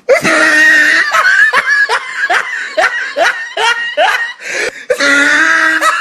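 Loud laughter in short bursts, about two a second, with a loud, noisy, sustained blast at the start and another near the end.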